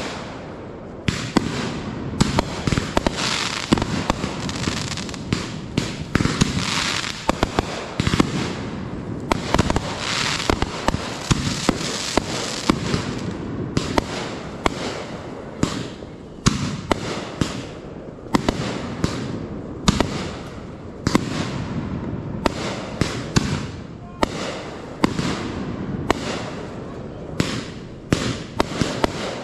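Aerial fireworks launching and bursting one after another: sharp bangs with stretches of hissing and crackling between them in the first half, and the bangs coming thick and fast in the second half.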